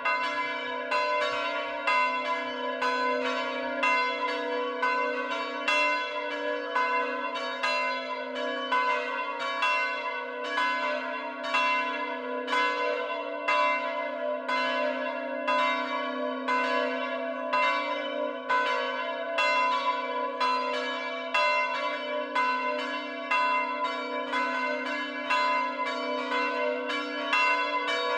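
Electrified swinging church bells from a five-bell chime in F#3, ringing in rapid, overlapping strokes with a sustained hum. A few seconds in, the full peal gives way to the three smallest bells ringing on their own.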